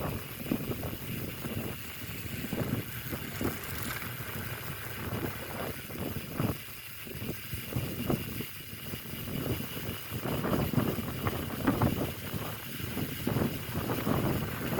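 Wind buffeting the microphone of a bicycle speeding downhill in a strong wind: a low, gusty rushing that swells and fades irregularly, heavier in the last few seconds.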